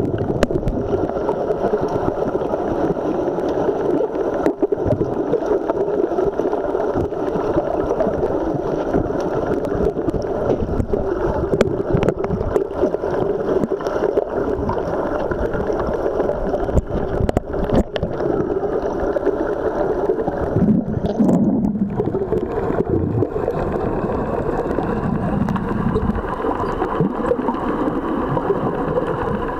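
Muffled underwater noise of a swimming pool heard by a submerged camera: a steady rushing and gurgling of water and bubbles, with a few sharp clicks now and then.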